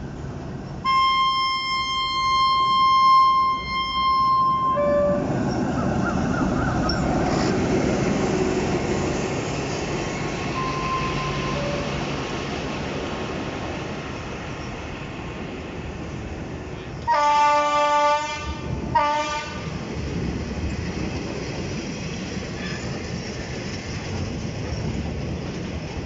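Thai diesel locomotive's horn sounding one long blast of about four seconds, followed by the steady rumble of the train's carriages rolling past close by over the steel truss bridge. Later the horn sounds again, a blast of about a second and then a short toot.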